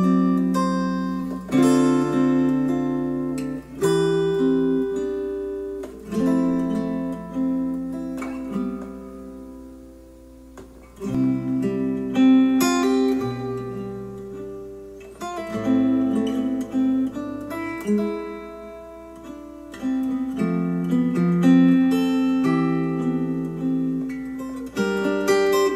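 Acoustic guitar music played through a pair of hi-fi bookshelf speakers driven by an Arcam SA10 integrated amplifier. Plucked and strummed chords ring and fade, with a quieter stretch about a third of the way in before the playing builds again.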